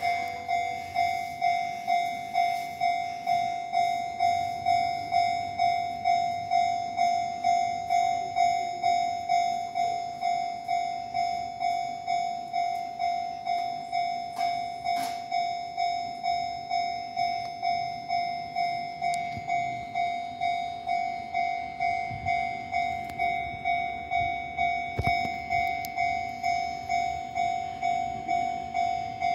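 Japanese railway level-crossing alarm ringing a repeating bell-like ding about twice a second, each strike fading before the next. This is the warning that a train is approaching the crossing.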